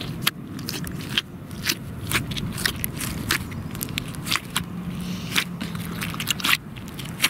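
Hands squeezing and kneading clear glitter slime packed with beads in a plastic bucket: a steady run of irregular wet pops, clicks and crackles.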